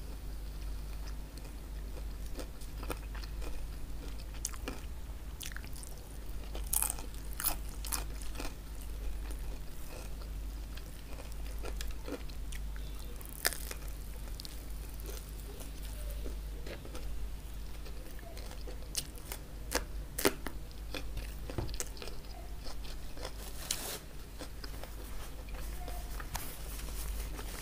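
Close-miked eating of crispy chicken hawawshi: the baked bread crust crunches and crackles as it is bitten and broken, with wet chewing in between. Sharp crunches come irregularly throughout, several at a time, over a steady low hum.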